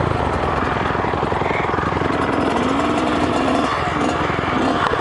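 Small off-road engines idling together: a Kawasaki KX100 two-stroke dirt bike with other dirt bikes and a quad, running steadily with a rapid, even firing pulse.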